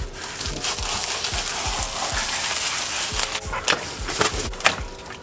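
Plastic stretch wrap being torn and pulled off a large cardboard box. There is a rough tearing hiss for the first few seconds, then several sharp crinkles and rips.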